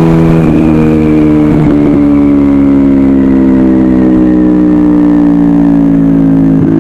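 Motorcycle engine running on the overrun, its pitch falling slowly and steadily as the bike decelerates, with wind rumble over the microphone.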